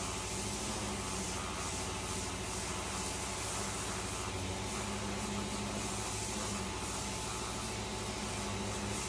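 A power sander running steadily as it sands and shapes the hub of a wooden propeller, with a low machine hum underneath.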